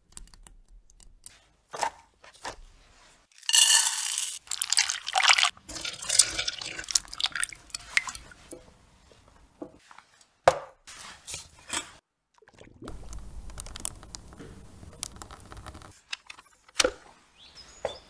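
A string of close-up food-prep sounds: a bagel plunged and turned in thick chocolate sauce with wet dripping, bursts of crisp crunching, and dishes or a tray being set down, with sharp clicks between the cuts.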